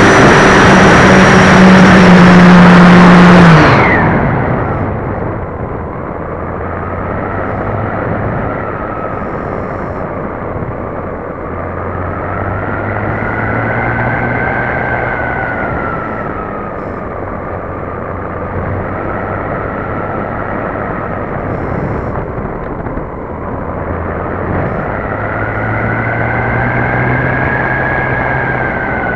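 Hype Cessna 400 Corvallis RC model plane in flight, heard through a tail-mounted keychain camera: a loud rush of wind and motor noise that drops sharply about four seconds in. After that a motor whine rises and falls slowly with the throttle, over steady airflow noise on the microphone.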